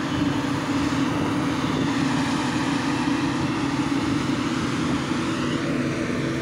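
Tractor engine running at a steady speed, a constant drone with no change in pitch.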